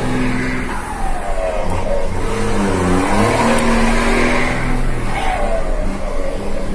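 Truck's diesel engine heard from inside the cab, pulling away with its pitch rising and dropping back a couple of times as it goes through the gears.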